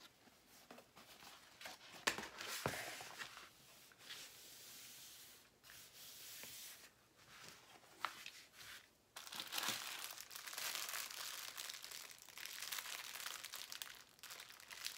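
Plastic crinkling and rustling as a diamond-painting canvas with its protective plastic film is pressed flat and a clear plastic bag of drill packets is picked up and handled. Scattered crackles with a sharp click about two seconds in, then steadier crinkling from about nine seconds in.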